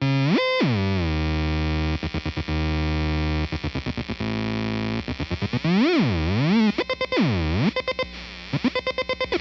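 A heavily distorted instrument tone played through a custom rotary-phone effects unit. It swoops sharply up and down in pitch, holds steady notes, and is cut into a rapid stutter several times.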